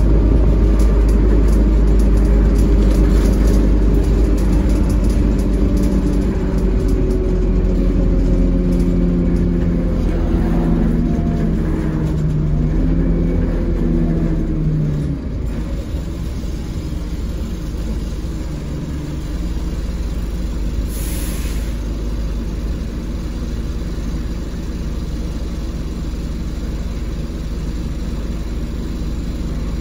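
Dennis Dart SLF bus heard from inside the saloon while under way: the diesel engine and drivetrain pull with a whine whose pitch slides down and back up through gear changes. About halfway through the pull drops away suddenly, leaving a lower steady running rumble. A brief hiss follows some seconds later.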